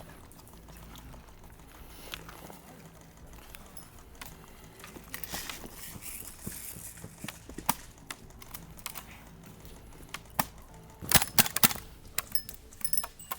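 Rustling and steps through undergrowth with scattered clicks and snaps, then a quick run of five or six loud sharp cracks a little after eleven seconds in.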